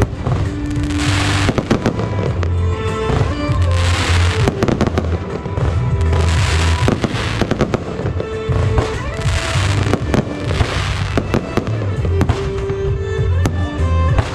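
Aerial firework shells bursting overhead, with repeated sharp bangs and several stretches of crackle. Loud music with a steady bass beat plays underneath.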